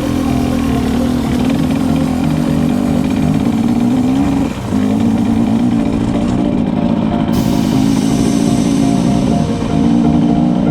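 Husqvarna TE 300 two-stroke enduro engine running at steady revs under way, with a short drop in level about four and a half seconds in.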